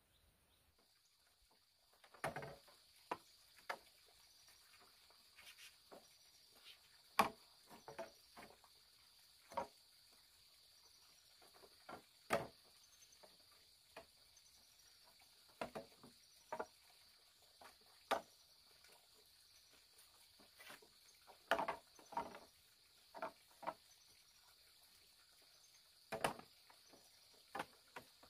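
Bamboo poles knocking and clacking as they are handled and set into a bamboo frame: irregular hollow knocks, one or two every couple of seconds, starting about two seconds in. Behind them runs a steady high insect drone with faint repeated chirps.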